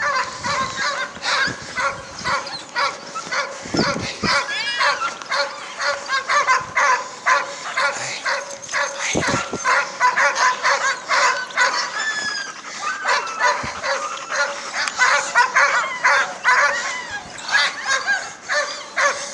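Sled dogs in harness barking and yipping over one another in a continuous chorus of many overlapping short calls.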